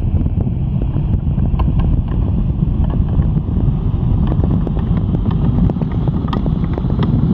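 Steady rumbling road and wind noise from a moving vehicle, with scattered faint clicks.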